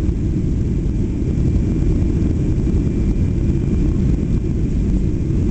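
Steady low rumble inside the cabin of a Boeing 737-800 in flight: its CFM56 turbofan engines and the airflow over the fuselage, with a faint steady whine above it.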